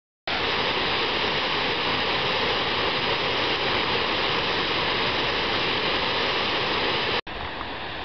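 Water rushing and churning down a concrete spillway chute over baffle blocks, a steady loud rush of white water. About seven seconds in it cuts off for an instant and resumes quieter.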